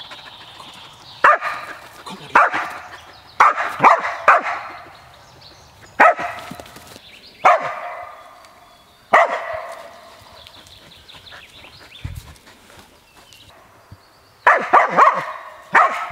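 A Laika barking at a wild boar, holding it at bay. There are single sharp barks about one to one and a half seconds apart, then a quicker run of barks near the end.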